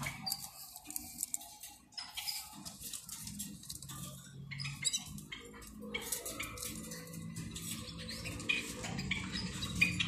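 Scattered short, high chirps and light clicks from a cage of European goldfinches, over a faint steady low hum.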